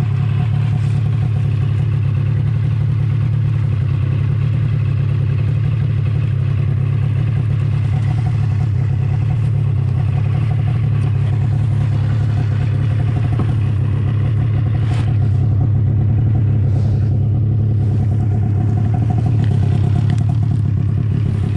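Snowmobile engine running steadily while riding through snow, a low, even drone that grows slightly louder about three-quarters of the way through.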